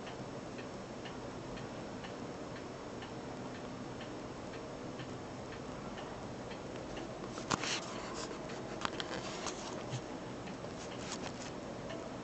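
Regular ticking, about two ticks a second, with a few clusters of louder sharp clicks and rustling about halfway through and again near the end.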